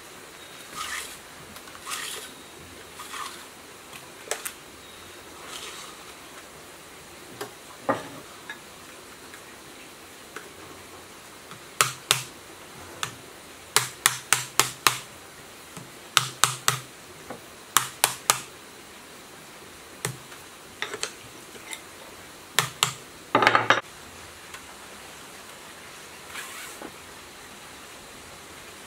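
Hands working the lead wires, insulating sleeving and cotton tape on a freshly wound electric motor stator: soft rustling in the first few seconds, then clusters of sharp taps, several a second, from about halfway through, with one short scraping burst just before the end of the tapping.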